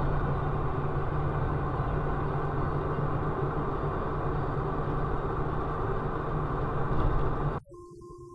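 Steady engine and tyre noise of a moving car heard from inside the cabin, with a low hum running under it. Near the end it cuts off abruptly and a much quieter steady tone takes over.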